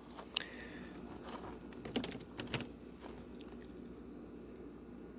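A few light clicks and taps of handling over a faint, steady high-pitched tone.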